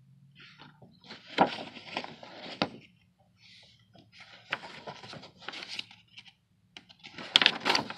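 Pages of a paperback picture book being handled and turned: several bursts of paper rustling and scraping, with a few sharp flicks.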